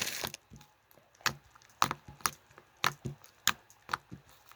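Pink slime being squeezed and poked by hand, giving a series of sharp sticky clicks and pops, about two a second at uneven spacing.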